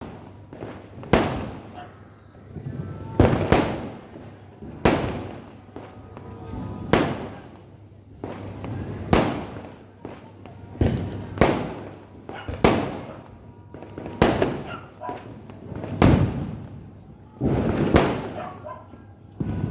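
Firecrackers going off one after another, a sharp bang every second or two, each trailing off in an echo.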